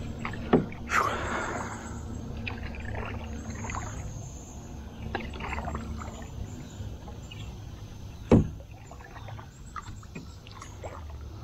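Wooden canoe paddle stroking through shallow lake water, with small splashes and drips as the blade dips and lifts. Over a steady low rumble, there is a sharp knock about eight seconds in.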